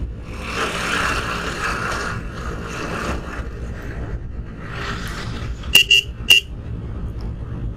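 Motorcycle riding along with steady engine and wind noise, then three quick horn beeps close together about six seconds in.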